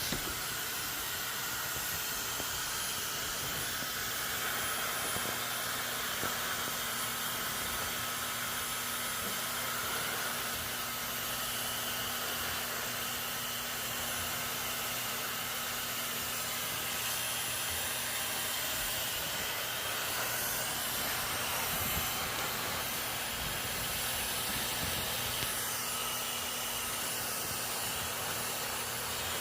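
Hair dryer running steadily: a continuous airy rush with a low motor hum underneath.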